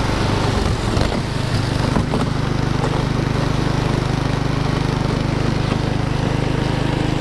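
Small engine of a homemade snowmobile-track sled running steadily under load as the sled travels over snow, holding one even pitch. A couple of knocks sound in the first two seconds.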